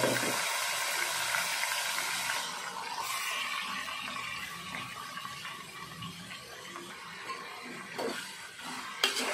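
Marinated chicken sizzling in hot oil in a steel pot: a loud hiss that dies down after about two and a half seconds. A steel spoon stirs the pieces, knocking against the pot a few times near the end.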